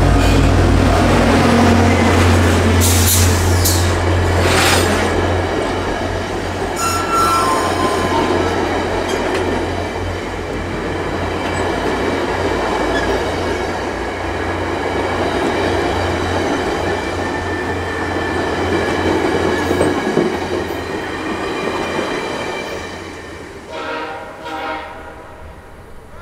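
VIA Rail passenger train hauled by F40PH diesel locomotives passing: a deep engine hum at the start, then the rumble of wheels on rail as the cars roll by, with a brief wheel squeal about seven seconds in. It fades over the last few seconds.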